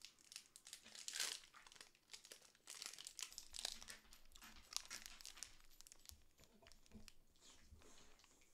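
Faint crinkling and tearing of a mini Bubulubu's plastic candy wrapper as it is unwrapped, loudest about a second in.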